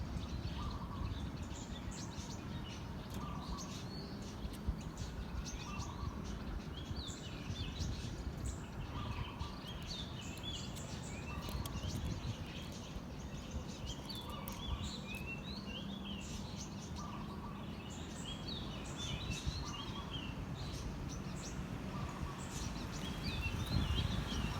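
Birds chirping and twittering in quick high notes, with a fainter call repeating about every two seconds, over a steady background hiss.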